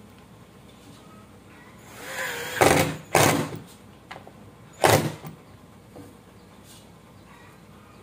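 Ingco S12 12-volt cordless impact driver driving a screw into plywood in short trigger bursts: a run-up about two seconds in, two loud bursts half a second apart, and a last short burst about five seconds in.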